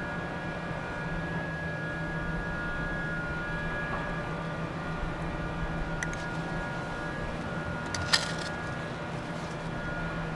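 A steady engine-like mechanical hum runs throughout, with a few sharp clicks and knocks of PVC pipe and fittings being handled. The loudest is a single sharp knock about eight seconds in.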